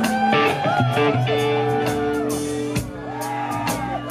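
Electric guitar played live through an amplifier, holding long sustained notes with bends and vibrato over held low notes from the band.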